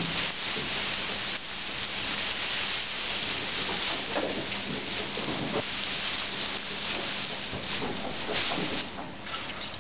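Dry straw rustling and scraping as it is pulled from a pile and shaken out into a compost bed, over a steady hiss.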